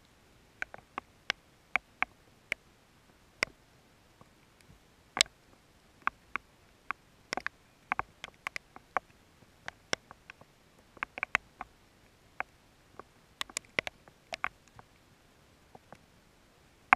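Scattered raindrops of a thunderstorm hitting close to the microphone: irregular sharp ticks, often two or three a second, with quiet between them.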